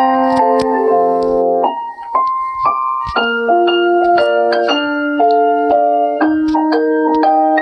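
Mobile phone ringtone: an electronic melody in a piano-like keyboard sound, notes and chords changing in steps. The music dips briefly about two seconds in, then a melody of single notes starts over a chordal accompaniment.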